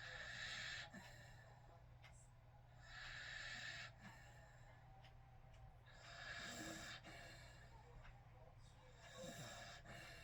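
Faint snoring: four slow, noisy breaths, each under a second long, coming about every three seconds.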